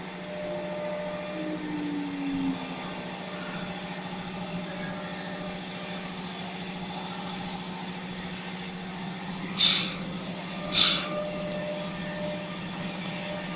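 CNC router running with a steady machine hum while its spindle whine falls in pitch over the first few seconds as it spins down. About ten seconds in come two short hissing blasts of compressed air blowing sawdust off the cut pieces.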